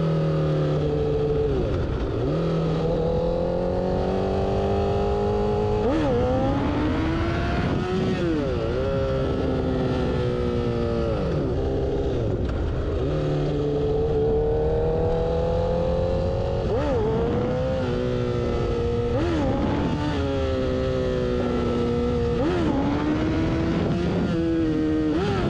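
Honda CBR1000RR's inline-four engine under way, revs climbing steadily through the gears and broken by repeated quick throttle snaps that swoop up and drop away, typical of attempts to pop the front wheel up into a wheelie.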